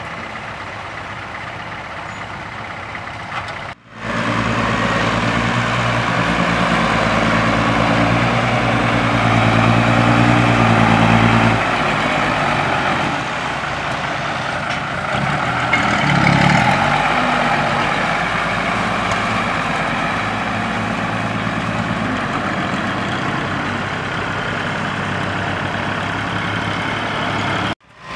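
Diesel engines of six-wheel dump trucks running on a dirt work site, across several edited shots. A steady low engine note holds for several seconds, changes about halfway through, then swells briefly. The sound cuts out abruptly twice where the shots change.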